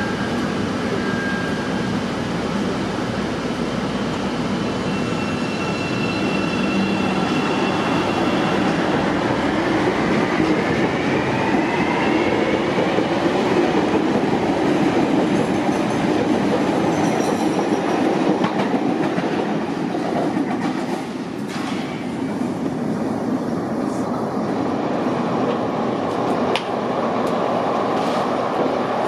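CTA 'L' rapid transit train running on the track, growing louder toward the middle and easing off a little past twenty seconds in. A rising whine comes about ten seconds in, and a few sharp clicks follow later.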